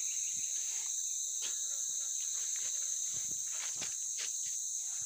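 Steady high-pitched insect chorus, with scattered light knocks and scuffs of footsteps and handling on the wood.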